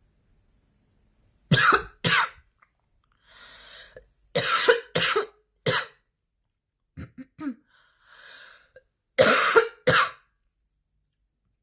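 A woman's hard, wet-sounding coughing fit: seven loud coughs in bursts of two, three and two, with breaths drawn in between and a few small throat sounds before the last pair.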